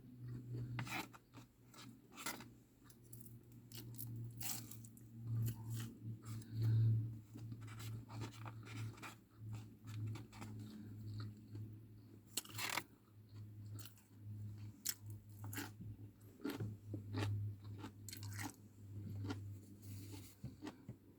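Close-up chewing and crunching of deep-fried prawns and mixed vegetables: irregular crisp bites and mouth sounds throughout, over a steady low hum.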